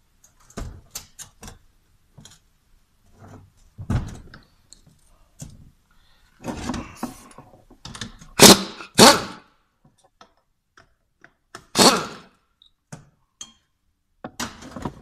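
Hands working on a Toyota Hilux D4D turbocharger and tools on a workbench: scattered metal clinks and knocks. A little past halfway come two loud thunks close together as the heavy turbo is grasped and shifted, then another loud knock a few seconds later.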